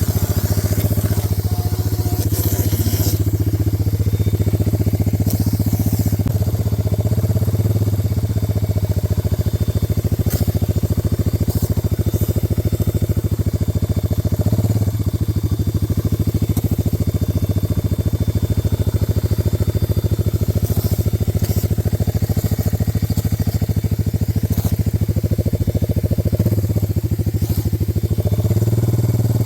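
Four-wheeler (ATV) engine running at a steady idle, a low even putter throughout.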